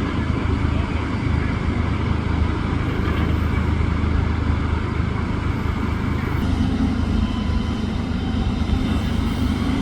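Heavy machinery's diesel engine running steadily with a low rumble, its note shifting slightly about six and a half seconds in.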